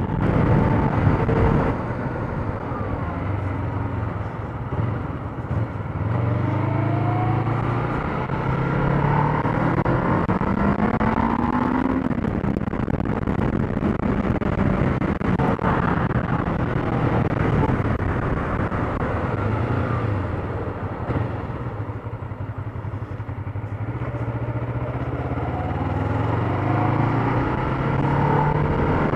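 Kawasaki Ninja motorcycle engine under way, its pitch climbing with the revs and dropping back at each gear change, several times over.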